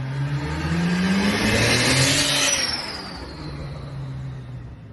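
Car engine accelerating, its note climbing for about two seconds, then dropping back to a lower steady tone and fading.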